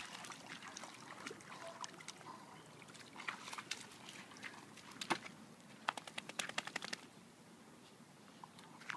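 Dog wading out of shallow water with a large stick: faint sloshing, then a run of small clicks and crunches between about three and seven seconds in as paws, stick and pebbles knock on the gravel shore.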